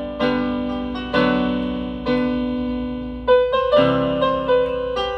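Global-brand 61-key electronic keyboard played in a piano voice with sustain and touch sensitivity on. Chords are struck about every second, each ringing on and slowly fading, with a quicker run of notes near the end.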